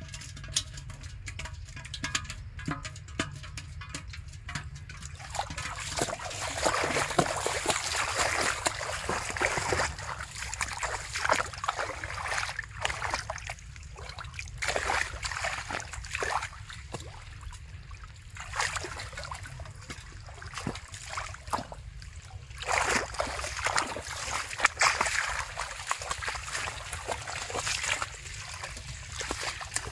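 Shallow muddy water splashing and sloshing in irregular bursts as hands grope through it and legs wade, with a steady low rumble underneath.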